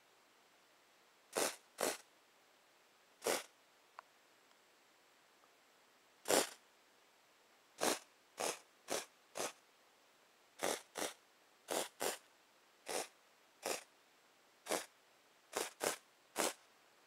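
Canned air sprayed in short squirts, about eighteen brief hisses at uneven intervals, often two in quick succession, freezing components on a live power supply board while hunting for a short. A faint click about four seconds in.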